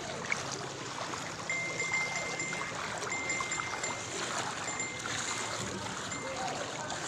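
Knee-deep floodwater rushing and sloshing, a steady watery hiss. A faint high-pitched tone sounds on and off from about a second and a half in.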